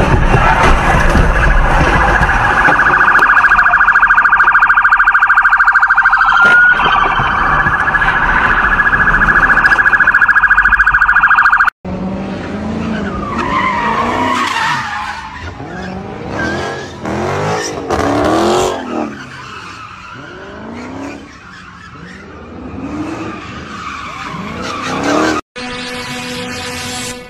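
A car alarm blaring steadily, then cutting off abruptly. Then a Dodge Charger's engine revving in rising and falling swells as its tyres squeal while it spins in circles on asphalt. Near the end, a short steady tone.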